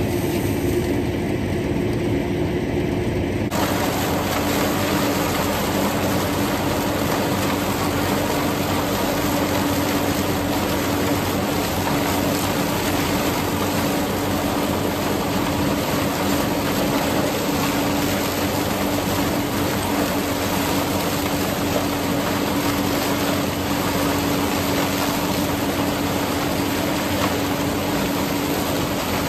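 Allis-Chalmers tractor running steadily under load, driving a flail chopper through standing corn. It makes a continuous mechanical drone with a steady hum, and the sound shifts in character about three and a half seconds in.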